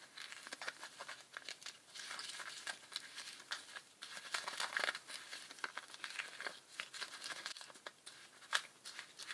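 Metal spoon stirring a gritty mix of Nutella and granulated sugar in a thin plastic cup: irregular scraping and crinkling, with small clicks of the spoon against the cup.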